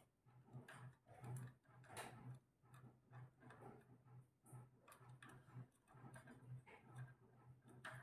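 Faint, irregular clicks and taps from a rose-ringed (Indian ringneck) parakeet's beak and claws on the wire of its cage as it climbs about.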